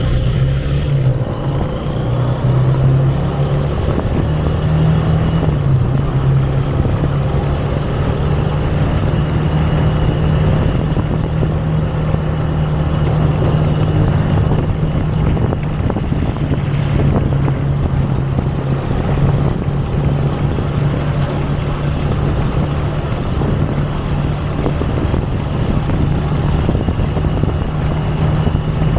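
Motorcycle engine running steadily at a cruising speed of about 30–40 km/h, heard from the rider's seat. Its pitch shifts a little over the first few seconds, then holds even.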